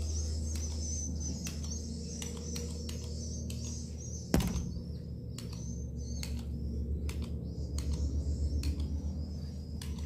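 Swiftlets twittering in high, wavering chirps with many scattered sharp clicks, over a steady low hum. A single sharp knock comes about four seconds in.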